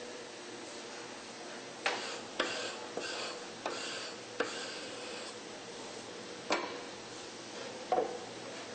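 About seven sharp, irregularly spaced knocks and clicks of hand tools against a piano's wooden inner rim during workshop handwork, over a faint steady hum.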